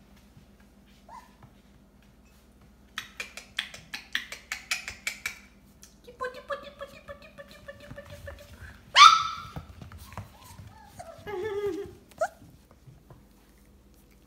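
Young puppies whining and yelping: a run of quick clicks, then a drawn-out whine, a loud sharp yelp about nine seconds in, and more whimpers ending in a short high yip.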